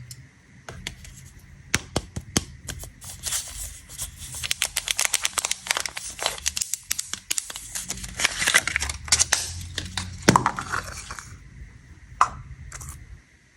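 Candy wrapper being crinkled and torn open by hand, a dense run of crackling from about three to eleven seconds in, with scattered sharp clicks before and after.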